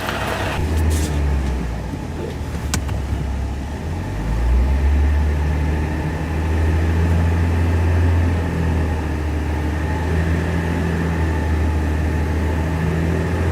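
Ram 1500 pickup truck's engine running at low speed as the truck creeps up onto the car ramps, growing louder about four seconds in as it takes the climb. A few short clicks come in the first few seconds.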